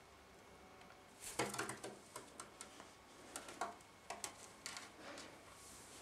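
A run of light, irregular clicks and taps starts about a second in and stops a little before the end, with the loudest near the start.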